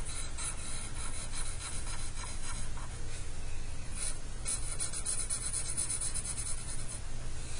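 Felt-tip marker scribbling on paper, many quick back-and-forth strokes as a shape is filled in with black, the strokes coming thicker in the second half.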